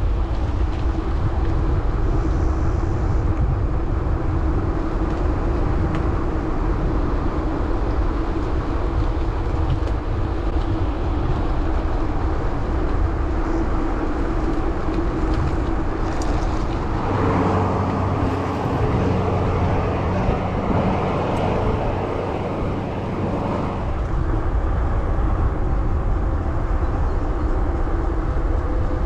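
Rolling noise of a gravel bike on Teravail Sparwood tyres: a steady low rumble with a constant hum. About two-thirds of the way in it turns rougher and louder for several seconds, with a second, higher hum, then settles again.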